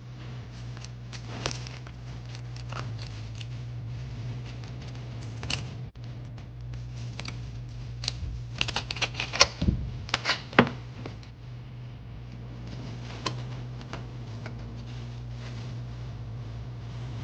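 Scattered clicks and crackles of objects being handled, thickest about halfway through, over a steady low hum.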